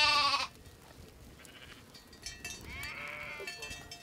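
Small livestock bleating: one loud wavering bleat at the start, then a fainter bleat about three seconds in.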